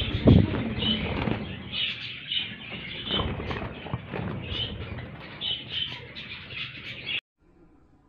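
A colony of small caged parrots chirping over and over in high bursts, with wing flaps and knocks against the cage wire strongest near the start. The sound cuts off suddenly about seven seconds in.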